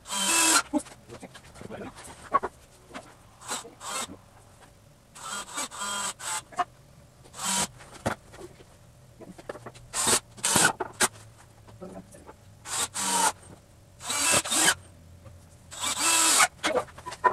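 Cordless drill run in short bursts of under a second, about ten times with pauses between, driving screws into wooden boards.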